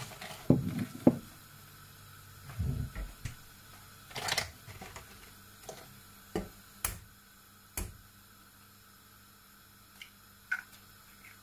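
Kitchen handling sounds: scattered knocks and sharp clicks of a saucepan and utensils being handled, loudest about half a second to a second in. A faint steady hum runs beneath them.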